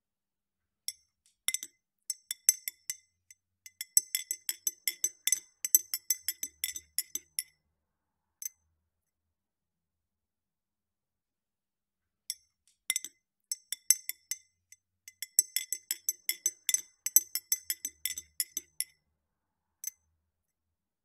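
A metal spoon stirring ice cubes in a ribbed drinking glass: rapid, sharp clinks of ice and spoon against the glass. They come in two runs of several seconds each, with a pause of a few seconds between.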